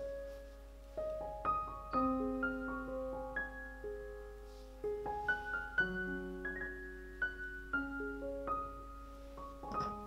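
Background piano music: a gentle melody of single sustained notes.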